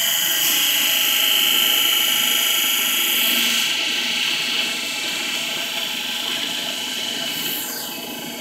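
Syil EX250 CNC lathe taking 40-thou roughing cuts on a 3-inch bar at 1600 rpm: a loud, steady spindle whine with the hiss of the tool cutting and chips spraying. It is loudest for the first few seconds, then eases off a little.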